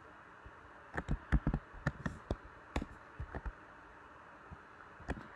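Light, scattered clicks of a computer keyboard, several close together in the first half and a few more near the end, over faint room hiss.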